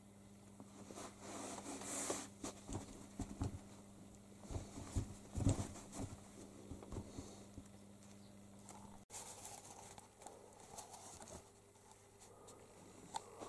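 Irregular soft thumps and scuffling as a kitten plays on a carpet, busiest in the first half, over a low steady hum that stops abruptly about nine seconds in.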